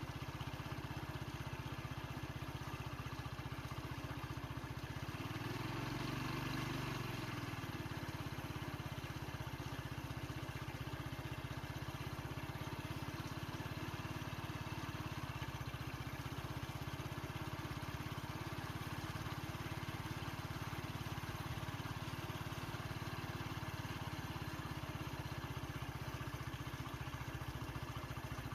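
Vehicle engine idling steadily, swelling briefly about six seconds in.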